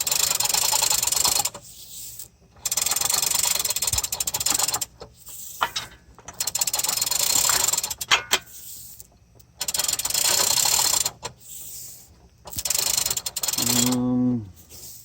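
Hand ratchet wrench clicking in repeated bursts of one to two and a half seconds with short pauses between, as bolts are run in or out. A brief low pitched sound near the end falls slightly.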